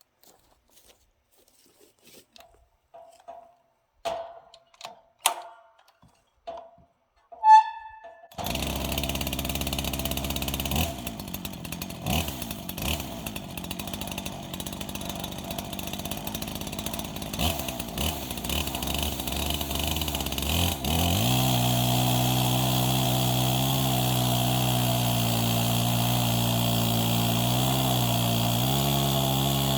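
A few clicks and knocks, then about eight seconds in a chainsaw starts and runs; from about twenty seconds in it holds a steady, loud pitch with brief dips as it rips lengthwise through a log in a homemade Alaskan chainsaw mill.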